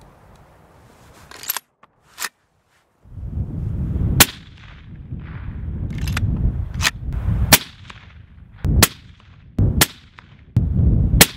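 A series of suppressed rifle shots, about eight sharp cracks one to two seconds apart, fired to break in a new barrel. Wind buffets the microphone between the shots.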